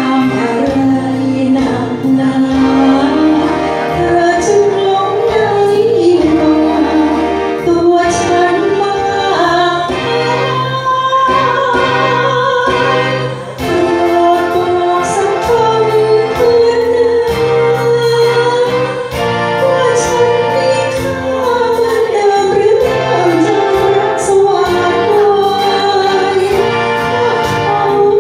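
A woman singing into a handheld microphone, amplified through a PA loudspeaker, over backing music with a steady beat.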